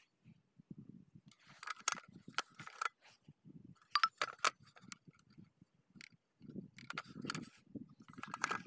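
Irregular small clicks, clinks and short scrapes as the slip-ring head of a center pivot irrigation system and its sheet-metal housing are handled, with the sharpest clicks about four seconds in.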